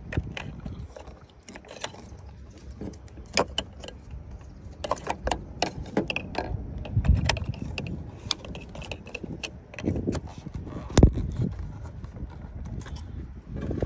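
Plastic wiring-harness connectors being handled and pushed together: a string of small clicks and rattles, with one louder snap about eleven seconds in.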